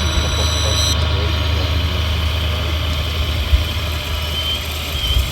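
Scale RC truck running its diesel-engine idle sound, a steady low rumble, with a high steady electronic whine that cuts off about a second in.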